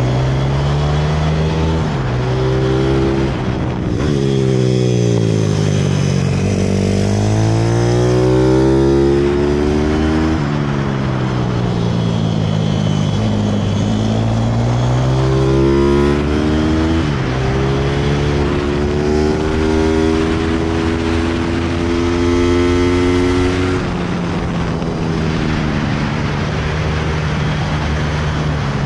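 Pit bike's single-cylinder engine heard on board while ridden around a track. Its pitch climbs under throttle and drops sharply several times at gear changes or when the throttle closes for corners.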